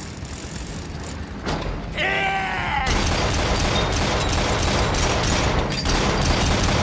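War-film battle sound: a man yells briefly about two seconds in, then dense, rapid gunfire mixed with booms breaks out and keeps going.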